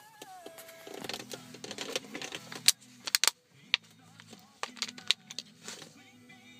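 Scattered sharp clicks and rattles of something being handled, with faint music under them.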